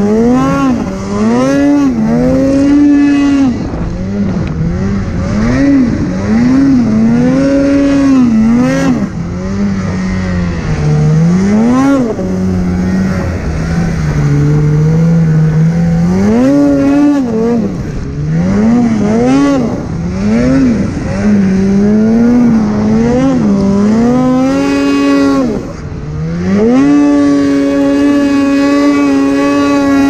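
Polaris snowmobile engine revving up and down as the throttle is worked, its pitch rising and falling every second or two, then held high and steady for a few seconds near the end.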